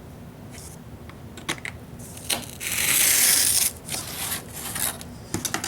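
Hobby knife cutting through cardboard. A few light clicks and taps come first, then one loud cut about a second long near the middle, followed by more small taps.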